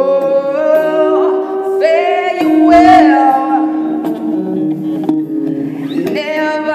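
Experimental live music: an electric guitar playing long sustained notes that slide up and down in pitch, with a woman's voice vocalising alongside it.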